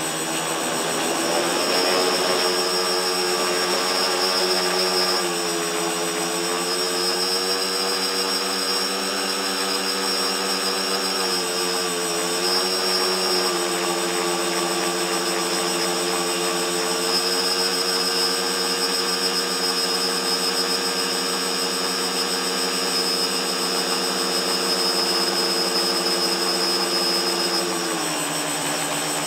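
Tricopter's electric motors and propellers whining steadily, picked up by the camera on board. The pitch rises about two seconds in as it climbs, dips briefly twice, and drops near the end as the throttle comes back.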